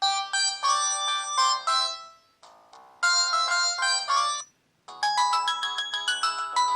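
Samsung E1120 mobile phone playing its preloaded ringtones through its small speaker. A short chiming melody plays twice with a pause between, then a different, busier tune starts about five seconds in.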